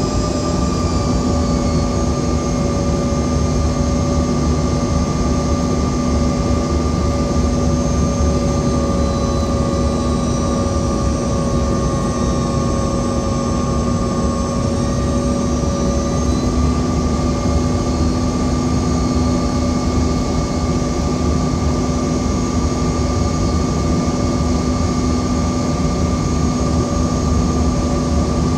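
Regional jet cabin noise on final approach, heard from a window seat: a steady roar of engines and airflow with several steady whining tones over it.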